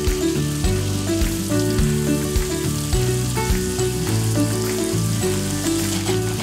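Sliced onion frying in melted butter in a pan, a steady sizzle, over background music with a steady beat.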